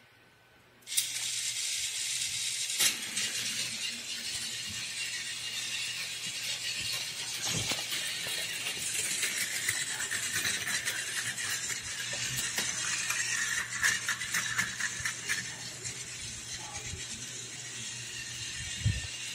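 Toy train running on plastic toy track: a small motor whirring with the wheels clattering, starting suddenly about a second in, with a few sharp clicks along the way.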